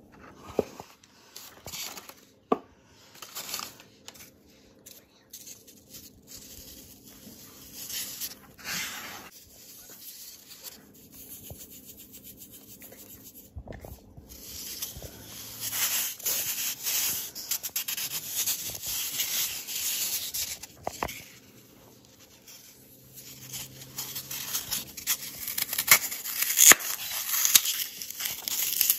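Hands crumbling and rubbing green floral foam coated in baking soda, a dry crunching and scraping. At first there are only scattered handling taps. From about halfway it becomes dense crackling, and it is loudest near the end as the foam is crushed.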